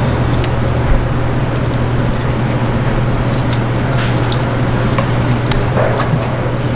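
A knife slicing through a raw yellowtail fillet on a cutting board, with soft wet squishing and a few faint ticks of the blade, over a steady low background hum.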